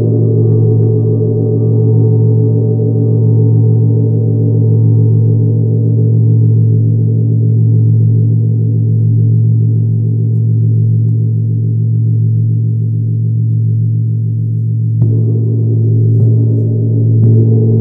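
Tibetan gong ringing with a deep, sustained hum that slowly swells and fades in waves. It is struck again about fifteen seconds in, with a couple of lighter touches soon after.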